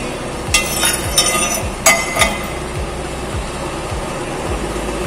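Steel parts of a drill-press stock holder clinking and knocking as they are handled, several times in the first two seconds or so, over a steady low hum.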